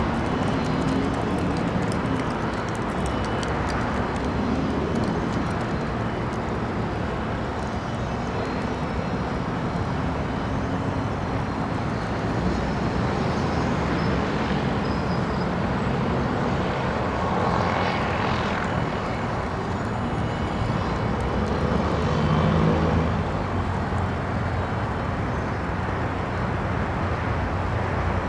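Goodyear blimp's engines and propellers running steadily as the airship hovers low to land, with the hum swelling slightly a little past three-quarters of the way through.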